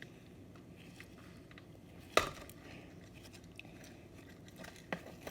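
Sand-filled slime being squished and stretched, mostly quiet, with one sharp pop about two seconds in and a couple of small clicks near the end.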